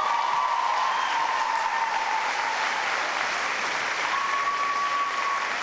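Audience applauding a finished dance performance, an even wash of clapping. A thin, steady high tone sounds over the clapping for the first couple of seconds and again near the end.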